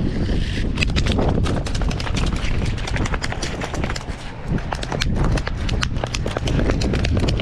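A rapid, irregular run of clicks and knocks, several a second, over a steady rumble of wind on the microphone.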